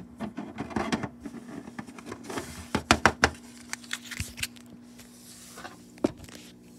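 Small plastic toys and props being handled in a plastic dollhouse: scattered clicks, taps and rustling, with a quick run of sharp clicks about three seconds in and one more click near the end.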